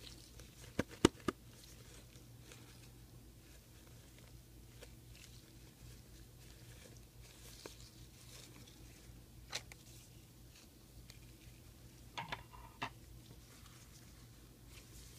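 Faint handling of a disposable 3-ply face mask in plastic-gloved hands, the mask being unfolded and turned over. Three sharp clicks about a second in, another later and a short cluster near the end, over a faint low hum.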